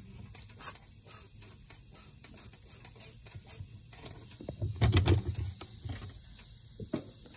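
Soapy water gurgling and crackling in quick, irregular pops on the top of a 2006 Land Rover LR3's front passenger-side air strut. This is air escaping through the foam, the sign of a leaking strut. A few heavier low thumps come about two thirds of the way in.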